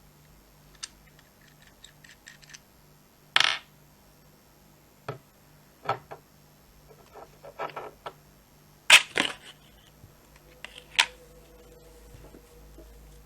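Small hard parts being handled and set down: a run of irregular clicks, taps and light metallic clinks, with two louder knocks about three and a half and nine seconds in.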